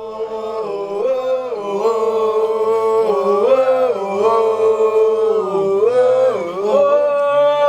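Singing in long held notes that step up and down in pitch, with a lower part underneath, growing louder over the first couple of seconds.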